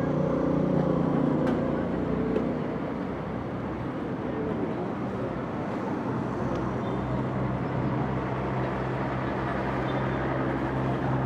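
Street ambience dominated by a motor vehicle's engine, a low steady hum over a wash of traffic noise; the hum eases off around the middle and comes back in the second half.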